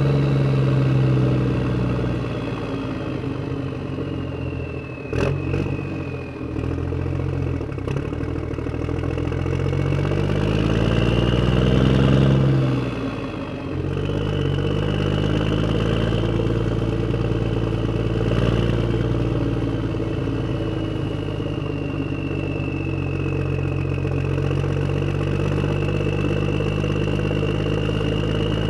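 Tractor engine running as the tractor drives on a road. The engine note dips early, climbs steadily, falls off sharply about 13 seconds in, then runs steady, with a high whine rising and falling above it. There is a sharp knock about 5 seconds in.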